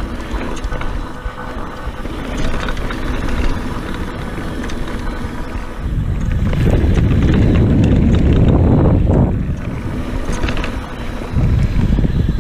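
Scott Genius mountain bike rolling fast over a dirt trail: wind rushing over the microphone mixed with tyre noise on the dirt. The rush grows louder about six seconds in, eases for a moment, then swells again near the end.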